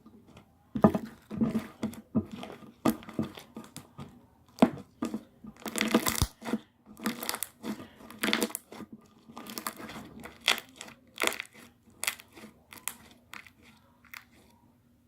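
Slime being squeezed and pressed by hand for ASMR: an irregular run of short bursts that starts about a second in and stops just before the end.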